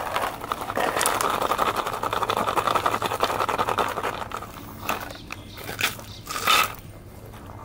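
Lion cub biting and chewing a plastic water bottle: dense crinkling and crunching of the thin plastic, which thins after about four and a half seconds into a few separate crackles, the loudest near the end.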